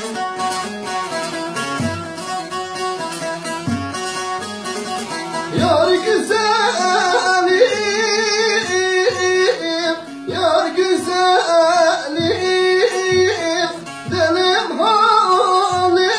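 Long-necked Turkish saz (bağlama) played with quick, repeated plucked strokes. About five seconds in, a voice starts singing along and the music gets louder.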